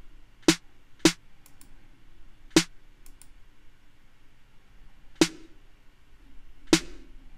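A soloed hip-hop snare drum sample played back through mixing software: five sharp, crisp hits at uneven spacing, each with a short, punchy body.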